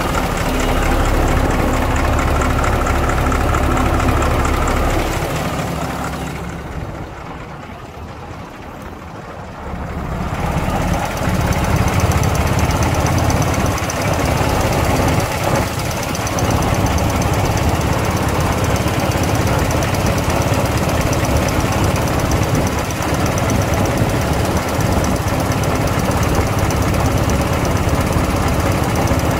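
Caterpillar diesel engine in a 1987 Ford 8000 truck idling with a steady diesel clatter. About six seconds in the sound drops and thins for roughly four seconds, then returns at full level.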